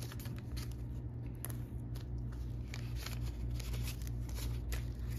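Paper banknotes rustling and crinkling in short, scattered crisp bursts as they are handled, counted and tucked into a binder's cash pocket, over a steady low hum.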